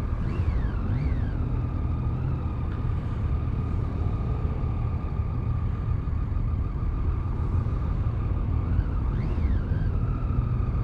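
Riding noise from a motorcycle-mounted camera in slow motorway traffic: a steady low rumble of engine and wind, with a few brief revs rising and falling in pitch near the start and again near the end.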